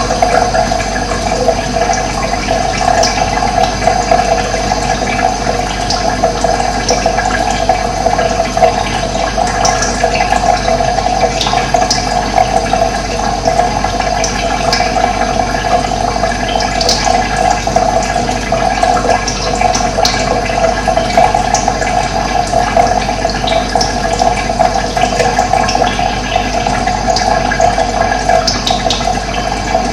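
Running water, a steady rushing flow, with short bird chirps now and then.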